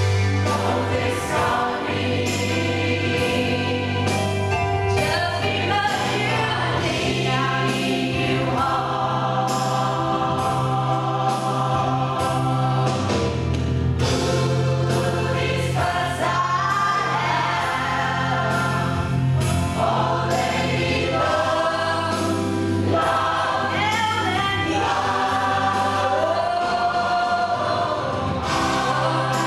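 Rock choir singing a pop-rock song, with a woman's solo voice through a microphone on top, over instrumental accompaniment with a steady bass line. Her held notes waver with vibrato.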